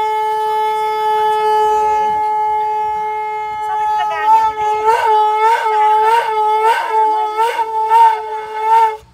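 A conch shell (shankha) blown in one long, steady note. About four seconds in, it breaks into a run of quick, regular pulses, about two a second, and stops near the end.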